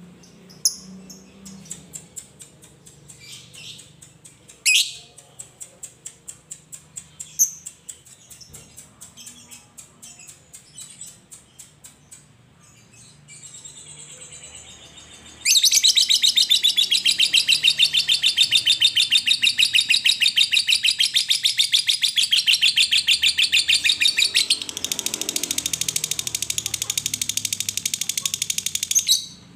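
Fischer's lovebird giving short, sharp ticking chirps for about fifteen seconds ('ngetik'). It then breaks into a long, loud, very rapid chattering trill ('ngekek') that runs for about fourteen seconds, changes tone partway through and stops abruptly.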